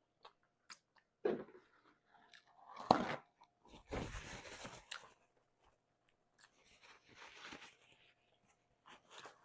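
Biting and chewing a pan-crisped tortilla wrap: several separate crunches with small clicks between them, the longest about four seconds in.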